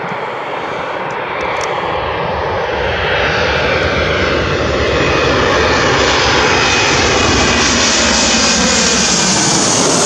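Boeing 737 on final approach, its twin turbofan engines growing steadily louder as the airliner comes in low overhead, then holding at full loudness.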